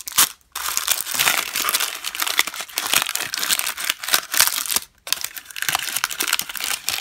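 Thin white tissue paper crinkling and rustling as hands unwrap a roll of decorative tape from it, with brief pauses about half a second and about five seconds in.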